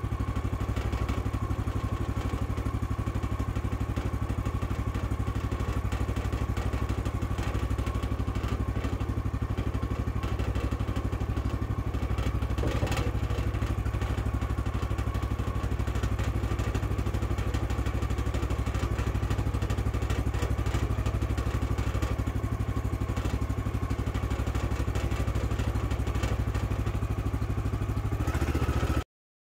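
The 14-horsepower gasoline engine of a Woodland Mills HM126 bandsaw mill running steadily at an even speed, with no cut under way. The sound cuts off suddenly near the end.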